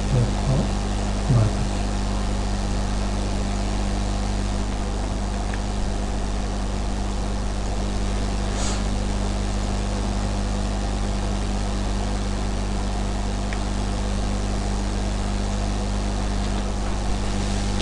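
Steady low electrical hum with hiss, the recording setup's constant background noise. Faint brief sounds come in the first second or so and once more near the middle.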